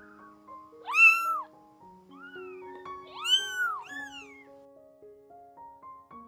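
A two-week-old kitten mewing: four short, thin mews that rise and fall in pitch, the loudest about a second in, over soft piano background music.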